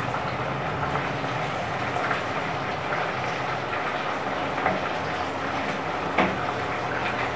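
Marinated pork pieces sizzling steadily as they brown in hot oil in a frying pan, with a couple of sharp clicks of a spatula against the pan as they are stirred.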